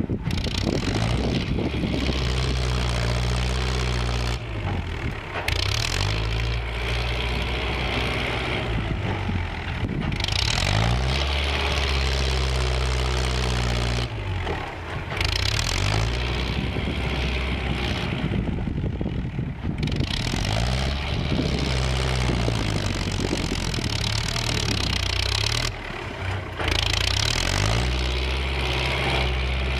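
Kubota compact tractor's diesel engine working hard as its front blade pushes soil; the engine note sags and recovers every several seconds as the load comes on and eases off.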